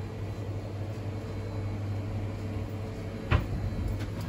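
Steady low electrical hum from powered-up arcade slot machines, with a single sharp knock about three seconds in.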